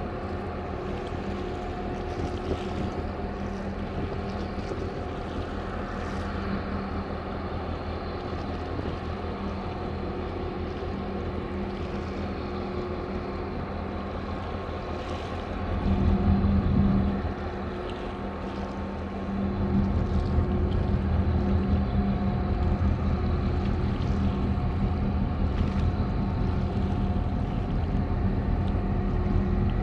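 A boat engine running with a steady low hum, with wind rumbling on the microphone. There is a short swell of low rumble just past the middle, and the rumble grows louder for the last third.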